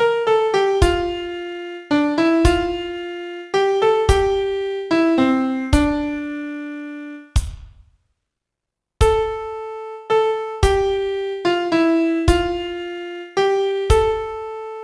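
Solo piano playing a slow song melody one note at a time over low bass notes, each note struck and dying away. About eight seconds in the playing stops dead for a second of silence, then the melody starts again.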